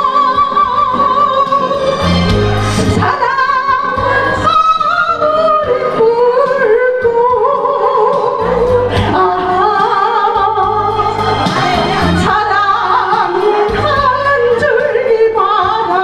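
A woman singing a Korean love song into a handheld microphone over an amplified karaoke backing track, holding long notes over a low bass beat.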